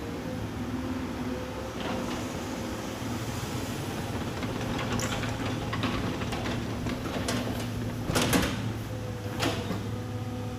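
Excavator diesel engine running steadily, with a series of clunks and knocks as logs are shifted; the loudest knock comes about eight seconds in.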